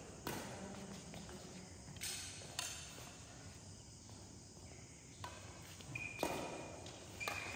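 Badminton rally: rackets striking the shuttlecock with sharp pops every second or so, echoing in a large hall, with two brief high squeaks near the end.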